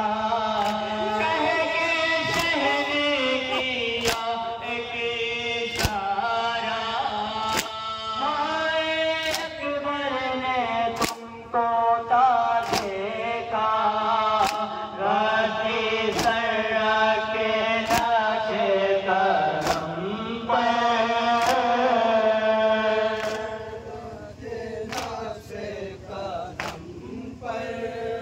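Male voices chanting a nauha, a Shia lament, through microphones and loudspeakers. A sharp slap falls about every 1.7 seconds in time with the chant: mourners beating their chests (matam). The chant is quieter for the last few seconds.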